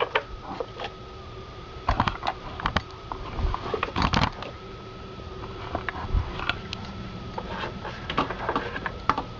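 Scattered clicks and knocks of a plastic towing-mirror housing and its wiring connectors being handled, with a cluster of louder knocks about four seconds in. A faint steady tone hangs underneath throughout.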